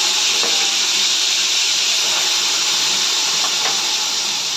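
Loud, steady sizzling of yakhni (mutton stock) hitting hot oil with whole cloves and cardamom in a steel cooking pot, with a couple of faint knocks.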